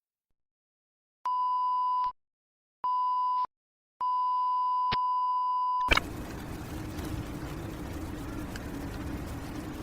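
Electronic beep, a single steady tone: two short beeps, then a longer held beep about two seconds long that cuts off abruptly. A steady hiss of noise follows to the end.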